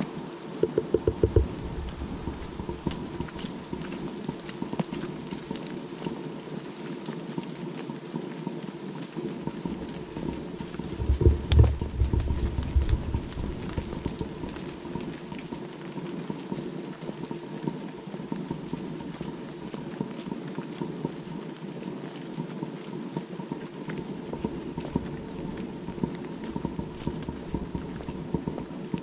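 Footsteps of a walker on a wet dirt woodland path, with rain pattering steadily on the surrounding leaves. Wind buffets the microphone briefly about a second in and again, more strongly, around eleven to thirteen seconds in.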